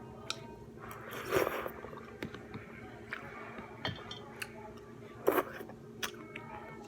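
Close-up eating sounds: chewing, with scattered light clicks and two louder noisy moments, about a second in and about five seconds in, over a steady low hum.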